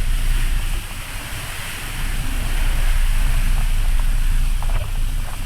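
Wind buffeting a phone's microphone on a moving boat's deck: a steady, fluttering low rumble under a hiss of wind and water.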